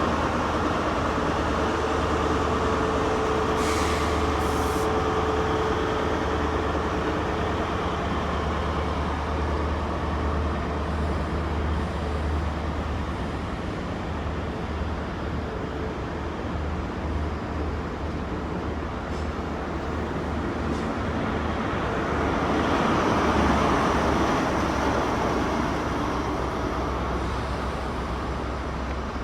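A GWR 'castle set' HST's Class 43 diesel power cars running as the train pulls out of the station, a steady low engine drone that swells again about three-quarters of the way through.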